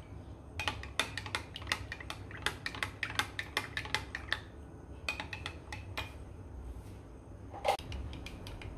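Metal spoon stirring custard powder into cold milk in a small glass cup, clinking rapidly and unevenly against the glass to break up the lumps. The clinks thin out after about six seconds, and there is one brief louder sound near the end.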